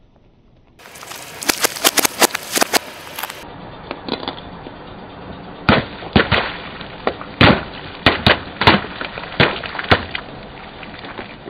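A car tyre rolls over a row of liquid-filled plastic tubes and bursts them one after another: about ten sharp pops spread over the second half. Earlier, a quick run of sharp cracks from another item being crushed.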